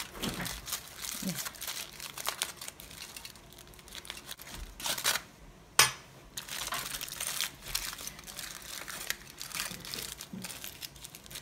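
Aluminium foil being crumpled and folded by hand into parcels, crinkling on and off, with one sharp click a little under six seconds in.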